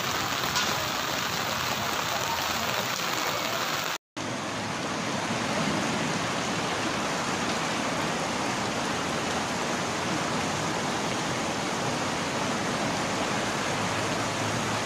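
Steady rushing of flowing floodwater, with no break in the noise except a brief cut-out about four seconds in.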